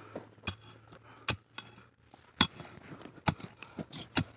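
A short-handled digging tool striking into stony soil, about six sharp knocks and clinks at uneven intervals, roughly one a second.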